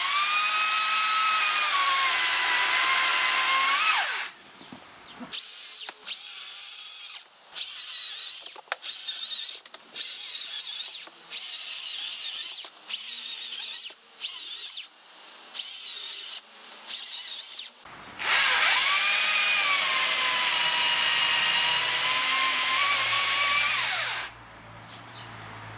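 Makita 40V XGT battery top-handle chainsaw cutting up a small tree trunk. It runs with a long high whine whose pitch sags as the chain bites into the wood, then gives a string of short trigger bursts. A second long cut of about six seconds follows and stops abruptly near the end.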